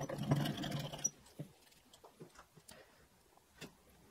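A spring-loaded scratch-test pen's tip scraped across a metal test panel coated in 2K car paint, one rough scratching stroke of about a second. A few faint small clicks and taps follow.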